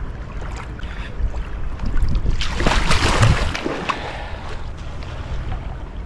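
Wind buffeting the microphone throughout, with a short rush of splashing water about two and a half seconds in.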